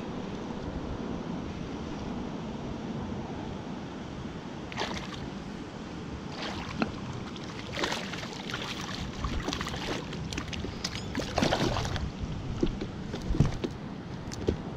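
A hooked brook trout splashing and thrashing at the water's surface beside a kayak. The splashes come irregularly, many in a row, starting about a third of the way in and growing loudest near the end, over a steady hiss of wind on the microphone.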